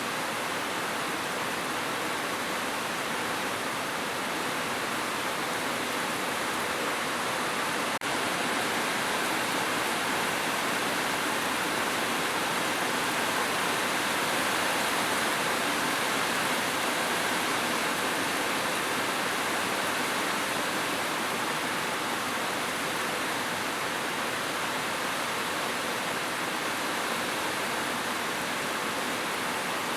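Heavy rain falling on a roof: a dense, steady hiss of countless drops with no letup.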